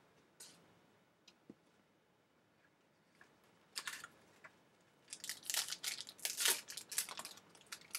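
Foil wrapper of a trading-card pack crinkling and tearing as the pack is opened, with a few faint clicks first and a dense run of crinkling in the second half.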